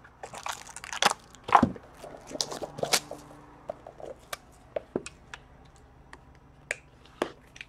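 A trading-card box being opened by hand: cardboard and wrapper rustling with irregular clicks and taps as the box and a pack are handled and set down on a counter, busiest in the first few seconds and sparser after.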